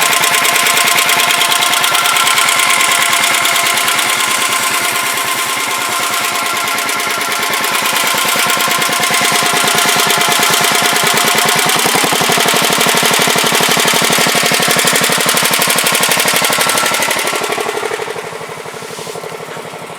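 Sears Suburban garden tractor engine running at a fast, steady rapid-fire beat, then easing to a quieter idle near the end.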